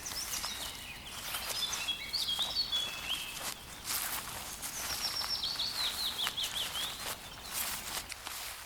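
Small birds chirping and singing, with a quick run of repeated down-slurred notes around the middle, over irregular rustling and crunching in the vegetation.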